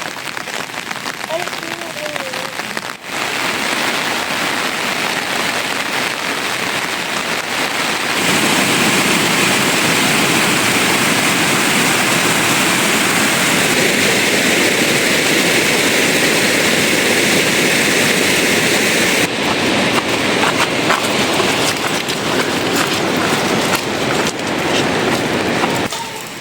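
Heavy rain falling steadily in a dense hiss. It grows louder about a third of the way in and drops back near two-thirds, changing abruptly each time.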